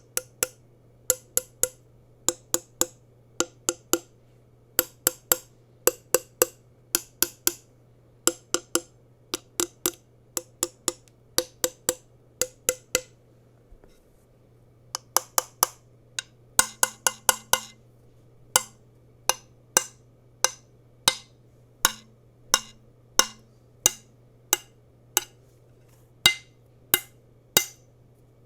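Keys on a Leobog HI75C Pro mechanical keyboard being pressed one at a time: crisp clacks from ICE Vein linear switches under PBT keycaps on an FR4 plate in a gasket-mounted aluminium case. The presses come slowly in pairs and threes, then a short quick run about halfway through, then single strokes at an even pace of about one and a half a second. A faint steady low hum sits underneath.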